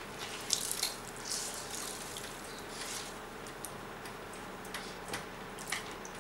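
Wet, dye-soaked crepe paper squeezed by hand, with water splashing and dripping into a plastic tub in short bursts and small clicks.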